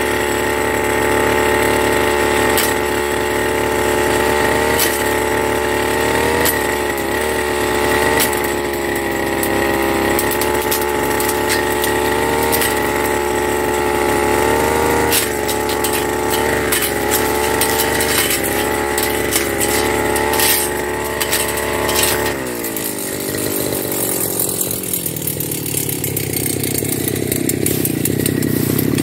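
Firman FGB389 backpack brush cutter's engine running at high revs while its blade cuts through brush and saplings, with frequent sharp clicks and cracks as the blade hits woody stems. About 22 seconds in, the revs drop and the engine settles to idle.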